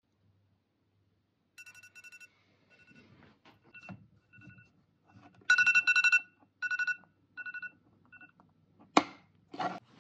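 A trilling electronic tone sounds in several short bursts, loudest in the middle, then two sharp knocks about a second before the end.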